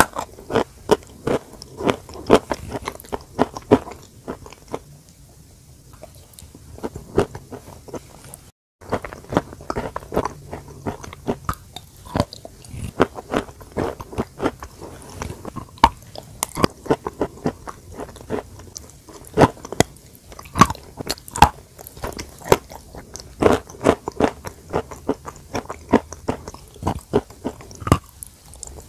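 Close-miked crunching bites and chewing of a crumbly white food, in irregular runs of sharp crackles. The sound cuts out for a moment about eight and a half seconds in.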